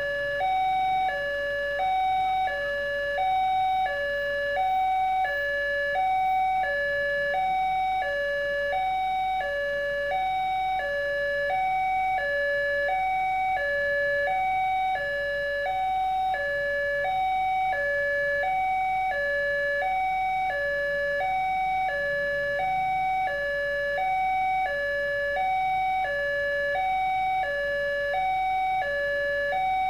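Indonesian railway level-crossing alarm sounding from the horn loudspeaker on the signal post. It plays an electronic two-tone warning, a high note and a low note alternating about every 0.7 s, that signals a train approaching and the crossing closing.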